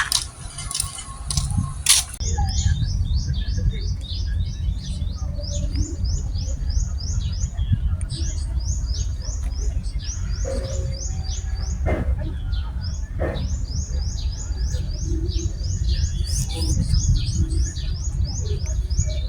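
A bird calling in quick runs of high, downward-sliding chirps, each run of several notes and repeated every couple of seconds, over a steady low rumble. A few sharp clicks come in the first two seconds.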